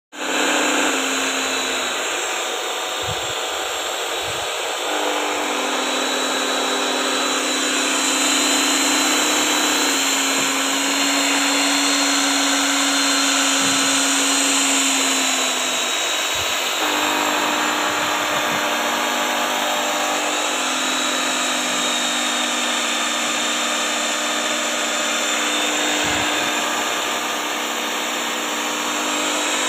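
Electric drill with a paddle mixer running steadily, churning rubber granules coated in polyurethane glue in a plastic tub. The motor hum steps up and down in pitch a few times.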